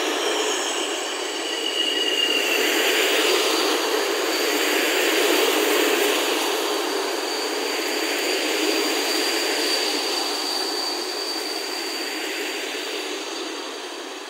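PKP Intercity passenger coaches rolling slowly past as the train pulls into the station and brakes. The wheels rumble steadily on the rails, a thin high squeal is held through most of it, and a second brief squeal comes about two seconds in. The sound fades near the end as the last coaches pass.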